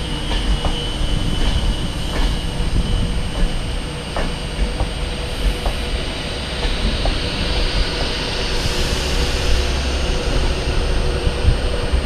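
Virgin Class 390 Pendolino electric multiple unit running along the platform, with a steady low rumble and a faint constant whine. Its wheels click sharply over rail joints every second or so. A hiss builds over the last few seconds.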